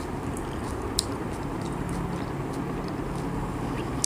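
Steady low background hum with two faint clicks, one about a second in and one near the end.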